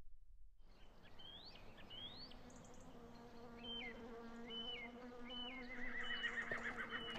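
A horse whinnying over a steady low hum, with a series of short high whistling calls starting about half a second in; the wavering, shaking whinny comes near the end.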